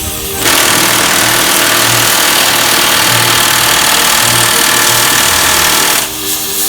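Cutting torch blowing a loud, steady hiss as it cuts through a fifth-wheel mounting bolt, starting abruptly about half a second in and cutting off about six seconds in, with an engine running underneath.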